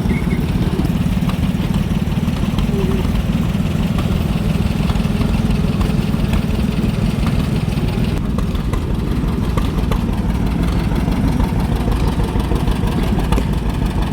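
Antique tractor engine running steadily, a low even rumble.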